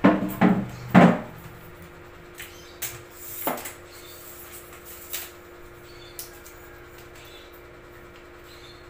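Tripod legs being extended: three sharp clacks in the first second as the plastic flip-lock leg clamps are worked, then scattered lighter clicks and knocks as the aluminium leg sections slide out and are handled.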